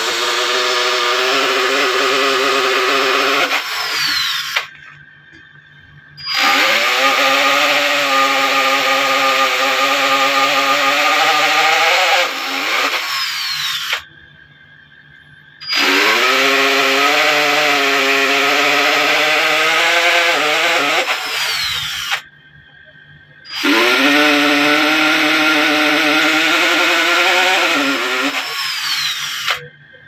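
Hand-held electric drill boring into an aluminium sheet. It runs in four stretches of several seconds each, separated by brief stops. Each time, the motor's whine rises as it spins up, then holds steady while the bit cuts.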